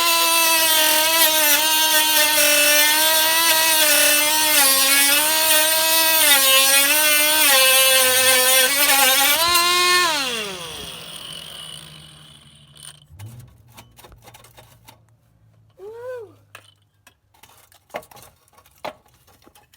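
Snap-on cordless angled die grinder running at speed while cutting through exhaust, its high whine wavering in pitch under load. About ten seconds in it is switched off and winds down with a falling whine, followed by a few light clicks and knocks.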